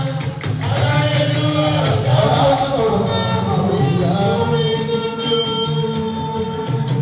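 Live Fuji music: a lead voice singing long, bending held notes over the band, loud and continuous.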